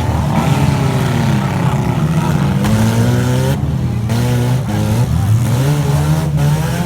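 Several demolition-derby car engines running hard together, their revs rising and falling throughout.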